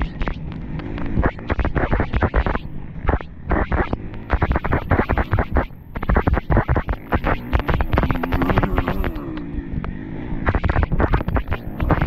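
Enduro motorcycle engine running and revving up and down over rough ground, with rapid irregular knocks, scrapes and rattles throughout.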